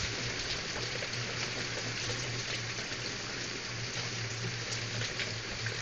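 Heavy rain pouring down: a steady, even hiss.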